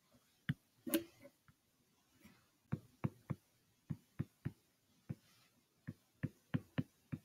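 A stylus tapping on a touchscreen while handwriting numbers and lines: about fourteen short, irregular taps, the loudest about a second in.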